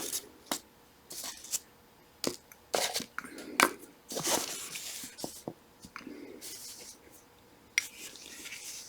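Small hand tools and shifter parts being handled on a work surface: scattered light clicks and taps with a few short scrapes at irregular times, as a tool is picked out to press a part from the shifter mechanism.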